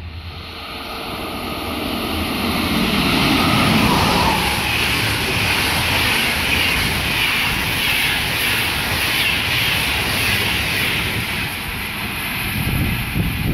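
Passenger train passing close at speed through a station: a rushing noise of wheels on rails builds over the first few seconds, with a falling tone as it goes by, then stays steady while the coaches roll past.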